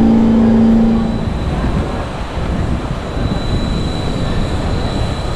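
New York subway train standing at the platform, giving a loud steady pitched hum. About a second in, this gives way to a steady rumbling noise of street traffic.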